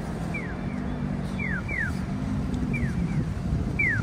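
Japanese pedestrian crossing signal's electronic "piyo-piyo" chirps: short falling chirps in pairs, repeating about once a second, signalling that pedestrians may cross. Under them runs a steady low traffic rumble.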